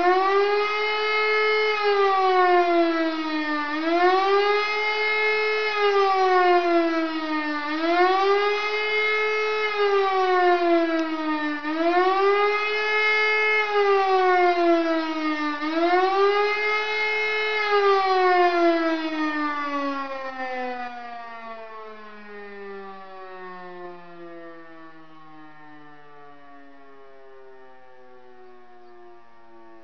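E57 electric motor siren sounding the 'Warnung' signal, the German public warning of danger: a howl that rises and falls about every four seconds, five times over. About two-thirds of the way through it stops being driven and winds down, its pitch sliding slowly lower as it fades.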